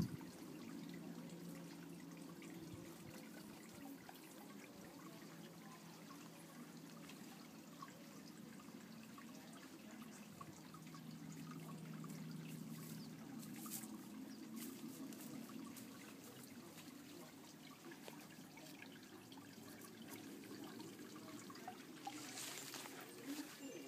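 Faint, steady trickling water with a low hum beneath it, and a sharp click at the very start.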